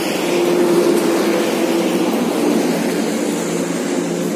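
A vehicle engine running close by: a steady drone with a low hum, easing off slowly toward the end.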